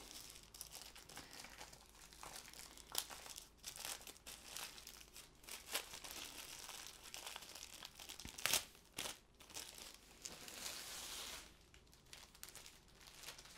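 Thin plastic wrapping crinkling and rustling as it is pulled and rolled off a rolled-up diamond painting canvas, with irregular sharp crackles. The loudest crackles come about eight and a half seconds in.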